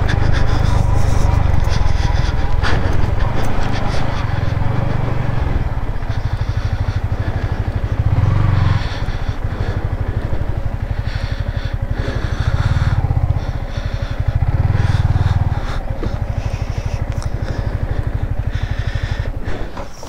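Yamaha MT-15 motorcycle's single-cylinder engine running at low revs while the bike is ridden slowly over a rough stone-and-dirt track, the engine note swelling a few times with the throttle.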